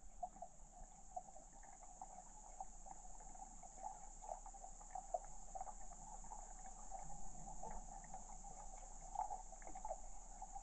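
Faint outdoor ambience: a steady high-pitched insect drone, with many short, irregular chirps in a lower register.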